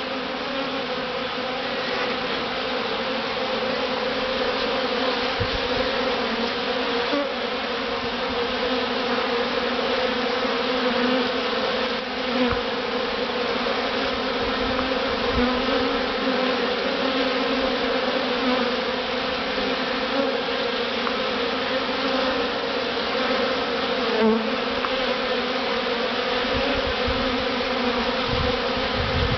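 Dense, steady hum of a large honeybee swarm heard at close range, thousands of wingbeats blending into one even drone.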